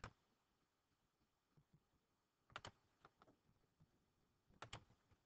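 Near silence broken by a handful of sharp computer mouse clicks, some in quick pairs, as pages are clicked through in a presentation program.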